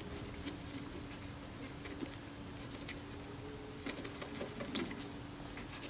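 Cotton bud being rubbed over stained metal camera shutter blades: faint, scattered scratchy rubs and small ticks over a steady low hum. The stain is coming off only slowly.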